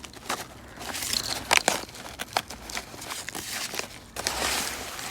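Packaging being handled and unwrapped by hand: irregular crinkling and rustling with scattered small sharp snaps, and a longer rustle near the end.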